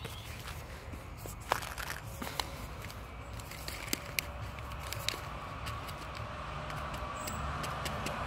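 Grey squirrel gnawing on food held in its paws: a handful of sharp, scattered cracks and crunches over a low, steady outdoor rumble.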